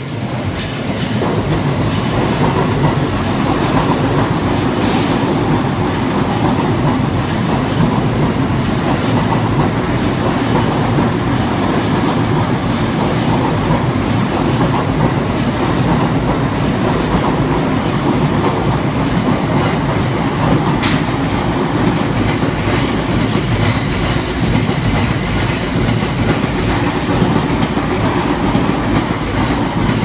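JR East E231-series electric commuter train passing over a level crossing: the rumble of the wheels and the clickety-clack over the rail joints build up in the first second or two, then run on loud and steady as the long train goes by.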